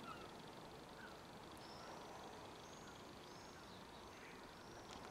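Near silence with a few faint, short bird chirps in the background.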